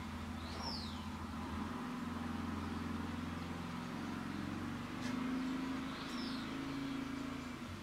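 Quad bike (ATV) engine running at a steady drone, its note shifting a couple of times as it is driven.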